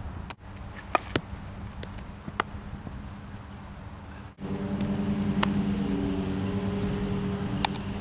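A few sharp, short knocks of a baseball being hit and fielded, over a low outdoor rumble. From about halfway, a steady motor hum joins in.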